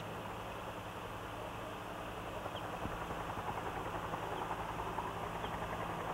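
Faint steady background hiss with a low electrical hum, growing a little louder and more fluttery about halfway through.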